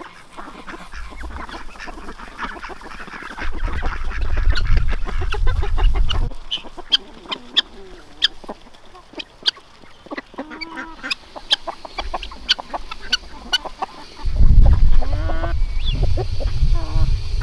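Ducks quacking, with short sharp ticks through the middle and a low rumble about three seconds in and again near the end.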